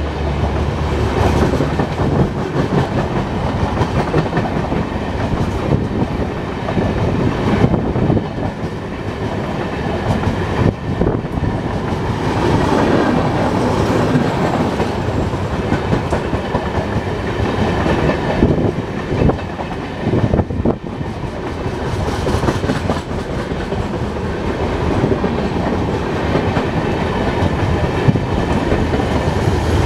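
Passenger coaches of an express train rolling past on the track: a steady rumble of wheels on rail with a continual clatter of wheels knocking over rail joints.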